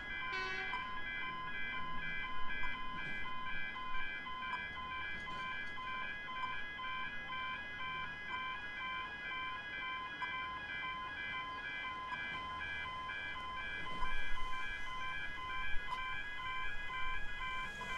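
Electronic level-crossing alarms, Barker Technic Type 2 bells and overpowering alarms, ringing continuously with an evenly repeating pulsed tone while the crossing is active and the gates are down. Low rumbling noise swells briefly about three-quarters of the way through.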